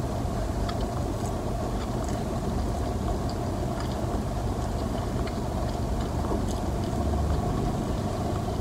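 Steady low hum inside a car's cabin, with faint soft clicks of someone chewing food.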